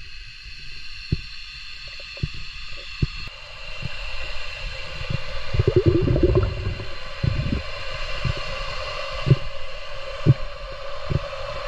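Underwater sound through a GoPro's housing while swimming: irregular dull knocks and thumps over a faint steady whine, with a burst of bubbling gurgles about six seconds in.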